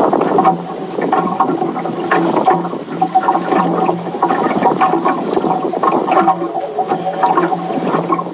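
Water sloshing and slapping against a small boat's hull, with scattered small splashes and a steady hum underneath.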